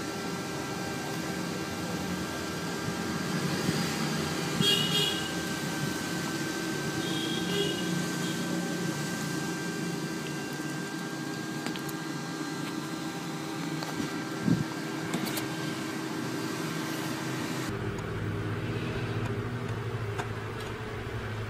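Otter pup giving a few short, high squeaking chirps, about five and seven seconds in, over a steady mechanical hum. Near the end the background switches abruptly to a different, lower hum.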